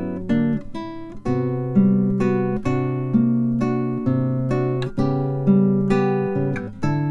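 Background music: acoustic guitar plucking chords in a steady rhythm, each note ringing out and fading.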